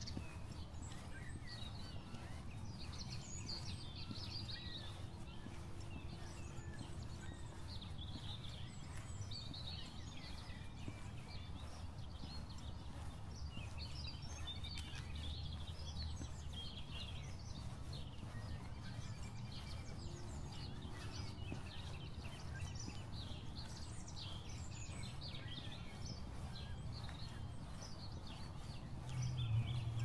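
Many small songbirds chirping and calling in short, scattered notes over a steady low rumble of background noise, with a brief louder low thud near the end.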